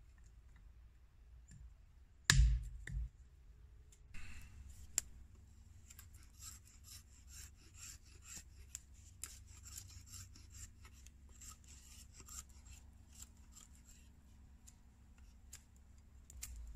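A loud knock a little over two seconds in. Then a steel knife blade shaving a stick of wood in repeated short scraping strokes, one or two a second, as the stick is whittled by hand.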